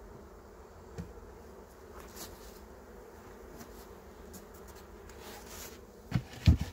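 Honeybees buzzing faintly and steadily around an open hive, with a small knock about a second in. Near the end come two loud thumps as the wooden hive lid is set down on the box.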